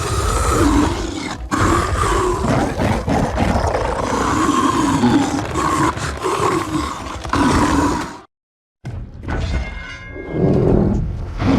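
Designed film sound effect of Skar King, the giant ape kaiju, roaring and growling in long, rough, wavering calls. The roaring cuts off suddenly about two-thirds of the way through, and after half a second of silence another roar builds up.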